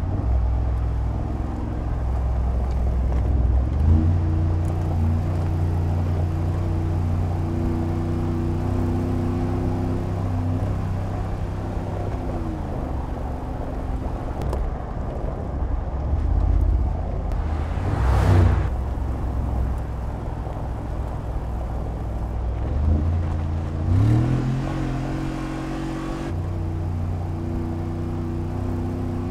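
Mercedes-Benz G-Class engine pulling hard on loose dirt. Its pitch climbs about four seconds in, holds, drops away around twelve seconds, then climbs again near the end, with a brief whooshing rush about two-thirds of the way through.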